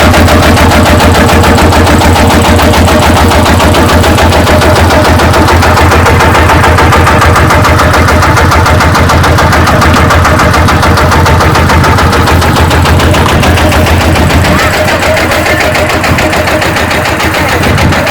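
Kubota DC-70G combine harvester's diesel engine running loudly and steadily, with a rapid, even pulse; it eases off slightly near the end.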